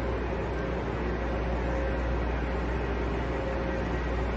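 Steady low hum and hiss of a parked electric high-speed train standing at the platform, with a few faint steady tones over it and no sudden events.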